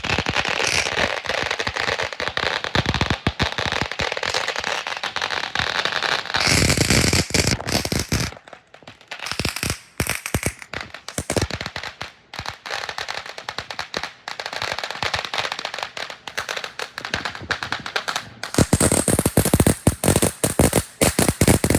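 Consumer fireworks going off in a rapid, dense string of crackling pops, heaviest about six seconds in and again near the end, then stopping abruptly.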